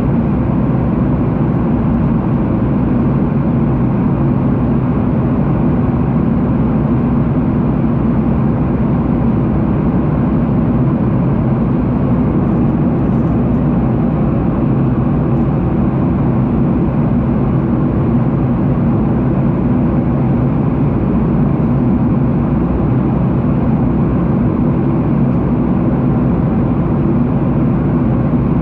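Steady jet airliner cabin noise: the low rumble of the engines and the rush of air, heard from inside the passenger cabin, level and unchanging.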